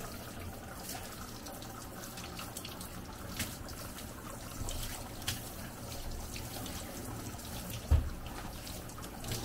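Warm water running steadily from a hand-held shower sprayer, spraying onto a wet Siberian husky's coat and splashing into the tub, with a single low thump about eight seconds in.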